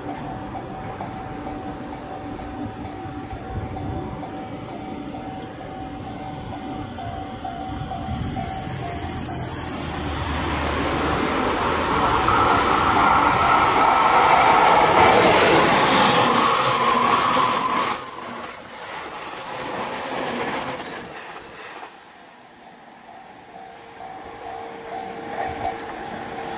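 JR East E257 series electric express train passing close by on curved track: its rumble and wheel noise build to a loud peak a little before the middle, with wheels squealing on the curve, and then drop away abruptly. Further along, a quieter stretch of the train running away.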